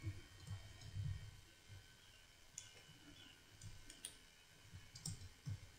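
Near silence broken by soft low knocks and a few faint sharp clicks in the second half, from handwriting on a computer screen with a pen input tool.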